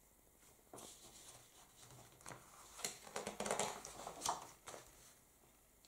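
Paper page of an instruction booklet being turned over by hand: a soft rustle and crinkle of paper, loudest for a second or two a little past the middle.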